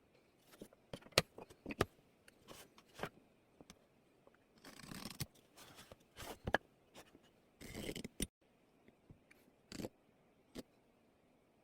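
Hand woodworking sounds: irregular sharp taps and clicks of tools and wood pieces, with two short scraping strokes about five and eight seconds in.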